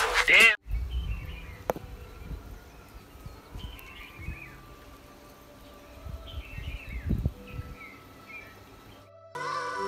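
Birds chirping in short, scattered calls over faint background ambience with an occasional low rumble.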